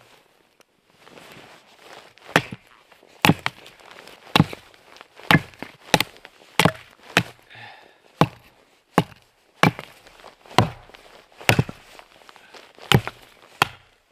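Firewood being chopped: a blade striking wood in about fifteen sharp blows, roughly one a second.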